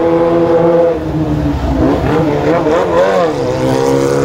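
Vehicle engine running in slow road traffic, its pitch holding steady and then rising and falling as it revs.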